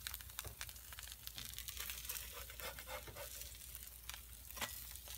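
Blueberry pancakes sizzling faintly on a hot griddle, a fine crackle with scattered small clicks over a steady low hum. A metal spatula scrapes and taps against the griddle as it lifts a pancake near the end.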